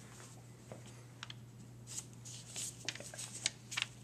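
A paper stencil handled and pressed onto bare skin by gloved hands: faint, scattered rustles, more of them in the second half, over a low steady hum.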